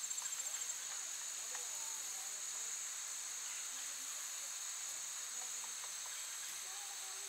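Insects trilling in a steady high-pitched chorus, pulsing rapidly for the first moment and then running on evenly.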